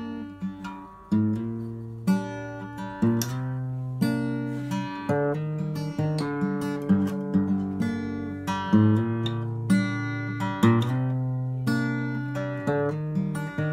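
Steel-string acoustic guitar playing a song's slow intro, with no singing: chords picked and strummed about once a second, each left to ring.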